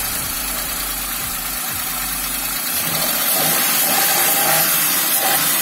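Car engine idling steadily, growing somewhat louder about three seconds in.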